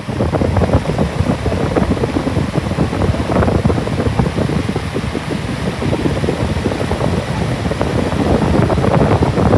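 Lasko 3733 box fan running, its airflow buffeting the microphone with a loud, rough, fluttering rush.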